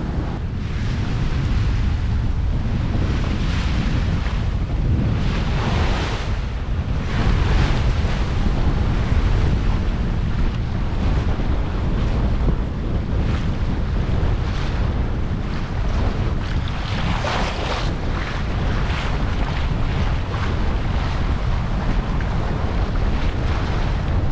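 Wind buffeting the microphone over water rushing and splashing along the hull of a Westsail 32 sailboat in a blow the crew reckons near 20 knots. A constant low rumble runs under washes of spray that swell and fade every few seconds.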